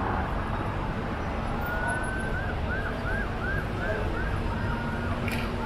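An emergency vehicle's siren starts with a rising wail, then switches to a fast up-and-down yelp, heard under steady city street traffic noise.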